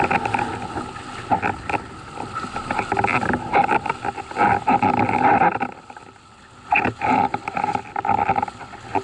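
A windsurf board planing over chop, with water rushing and slapping against the hull and wind buffeting a board-mounted camera's microphone. The noise is rough and gusty, with many short knocks, and drops briefly about six seconds in before picking up again.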